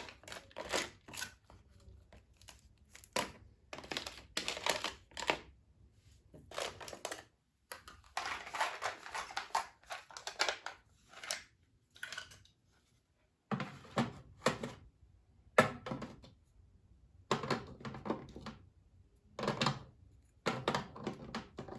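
Small plastic craft supplies being handled and put away: repeated rustling, clicking and light knocks as items are picked up and set down. There is a longer stretch of crinkling about eight to eleven seconds in.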